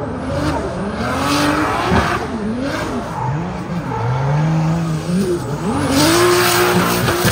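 A drift car's engine revving up and down as the driver works the throttle through a slide, with tyre squeal rising around a second in and again near the end as the car drifts past.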